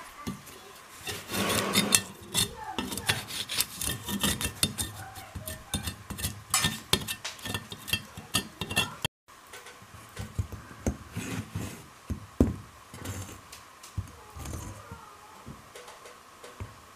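Metal knife blade scraping and picking at crumbling ceiling plaster around a hole, in quick irregular scratches and clicks that break off for an instant about halfway.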